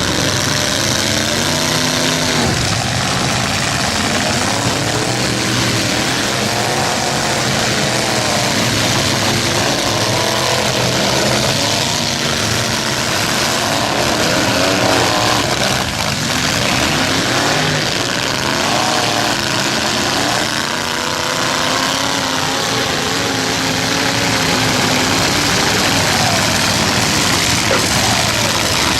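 Several demolition-derby pickup trucks' engines running and revving at once, their pitches rising and falling as the trucks accelerate and back off.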